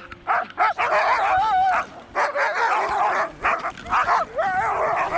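A team of harnessed sled dogs barking and yipping in rapid, overlapping calls. Twice a longer, wavering high whine or howl rises above the barking.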